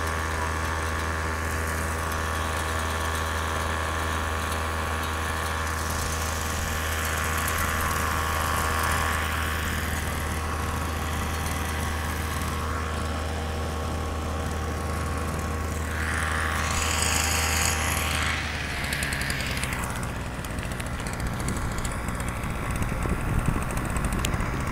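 Small two-stroke weedeater engine driving a motorized sand board, running at a steady pitch; about 18 seconds in its steady note drops away into a rougher, unsteady sound. Near the end there are knocks from the phone being handled against fingers.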